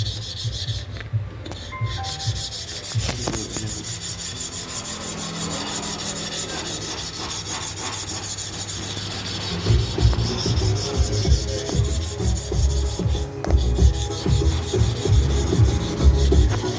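Blade of a manual hair clipper being rubbed back and forth by hand on a sharpening surface: a continuous scraping rub that grows louder, with heavier uneven strokes, about ten seconds in.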